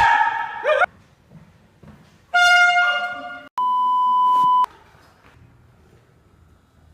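Two loud blasts of a foghorn-style prank horn, a steady honk with a rich stack of overtones. The first cuts off about a second in, its pitch bending downward. The second runs from about two and a half to three and a half seconds in, followed straight away by a one-second steady censor bleep.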